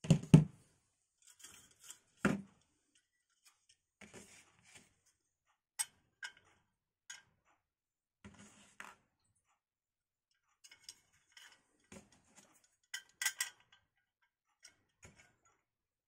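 Computer parts and their packaging being handled: a knock at the start and another about two seconds in, then scattered clicks, taps and short rustles of box and wrapping.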